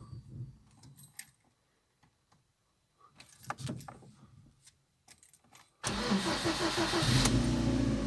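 A Lada Priora's engine is started. A few faint clicks and rustles come first, then about six seconds in the starter cranks. The engine catches within about a second and a half and settles into a steady idle.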